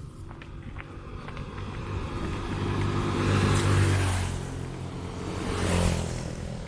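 Two motor vehicles driving past one after the other. The first is loudest about four seconds in, the second just before six seconds.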